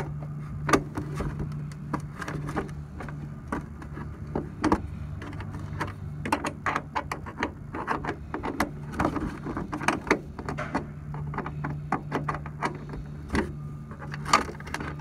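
Small steel bolts being turned and worked loose by hand from a headlight-adjuster cover plate, with many short clicks and scrapes, over a steady low hum.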